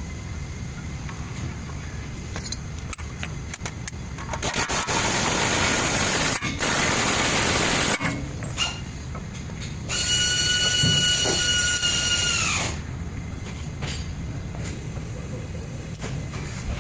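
Workshop tool noise over a steady low rumble and scattered clicks. There are two long bursts of hissing about four to eight seconds in, then a loud whining tool that winds down and stops around twelve seconds in.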